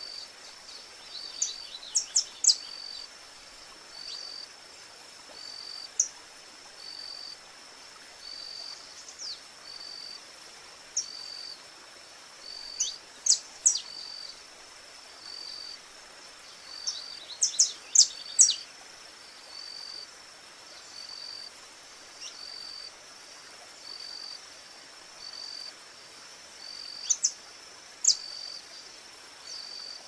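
Saffron finch singing in short bursts of sharp, high chips, about half a dozen times. Behind it, a steady insect buzz with a pulsed note repeating roughly every second and a quarter.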